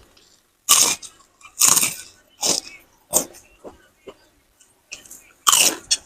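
Close-miked crunching of kerupuk, crisp Indonesian crackers, bitten and chewed in a series of loud crisp crunches, about five big ones with smaller ones between.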